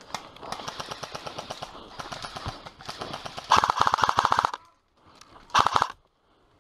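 AK-74-style airsoft rifle firing full-automatic bursts of rapid, even shots. Quieter bursts run through the first three seconds. Then comes a loud burst lasting about a second, and after a short pause a brief loud burst near the end.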